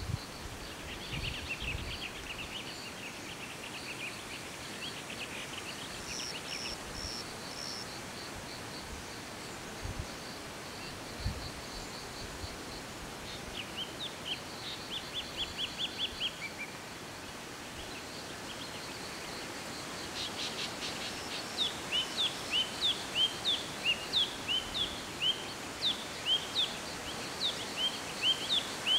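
Forest birds calling over a steady outdoor hiss: short trills and chirps, then from about two-thirds of the way in one bird repeats a short downward-slurred note about twice a second, the loudest sound. A couple of low thumps come about ten seconds in.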